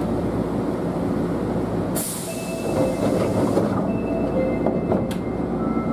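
Osaka Metro 10 series subway train running through a tunnel, heard from inside the front car as a steady rumble. A sudden hiss comes in about two seconds in, followed by several steady high squealing tones that come and go.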